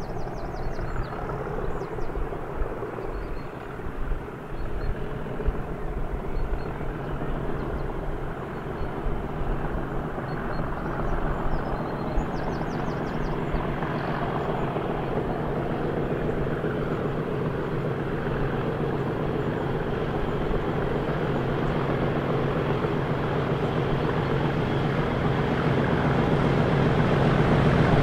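Class 37 diesel locomotive's English Electric V12 engine hauling a test train, approaching and growing steadily louder.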